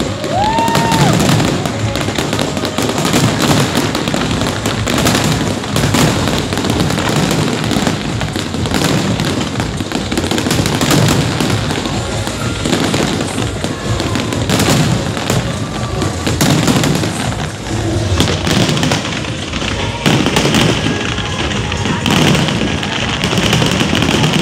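Dense fireworks finale: many shells bursting at once in continuous rapid bangs and crackling.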